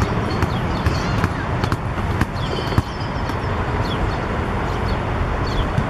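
Outdoor ambience of a youth football match: a steady low wind rumble on the microphone, distant children's voices, and a few sharp knocks, the loudest about halfway through.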